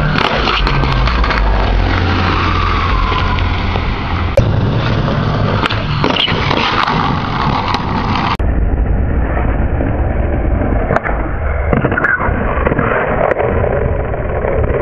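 Skateboard wheels rolling on a street with a steady rumble, broken by sharp clacks of the board popping and landing, the loudest about four seconds in.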